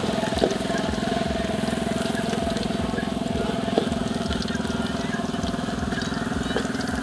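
A small engine running steadily with a rapid even pulse. A metal spatula clinks against an aluminium wok a couple of times as it stirs.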